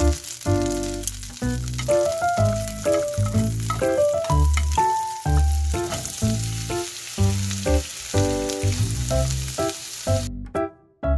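Melted butter sizzling in a frying pan, with sliced onion frying in it; the sizzle cuts off suddenly near the end. Light background music plays over it.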